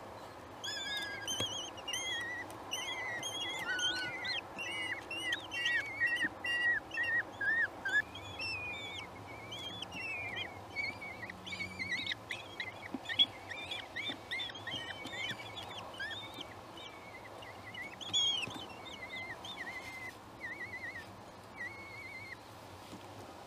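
Eurasian kestrel chicks begging with rapid, high, overlapping chirps while the adult female feeds them; the calls thin out to a few short trills near the end. One sharp knock partway through.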